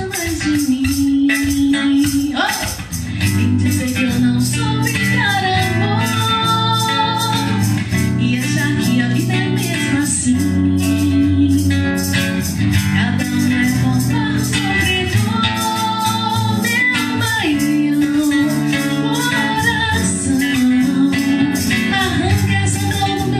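A woman singing a song live into a microphone, holding and gliding between notes, accompanied by a guitar played in a steady rhythm.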